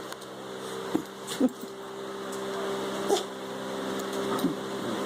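Puppies play-fighting, one giving three short whimpering cries, with small clicks of paws or teeth, over a steady low hum.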